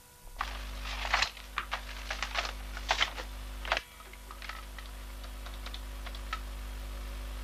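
Irregular sharp clicks and taps for the first few seconds, then lighter scattered clicks as the keys of a push-button desk telephone are pressed to dial a number.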